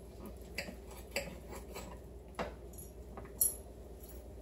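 Knife and fork cutting into a baked pork chop on a china plate: a few faint, short scrapes and clinks of metal against the plate, the loudest about three and a half seconds in.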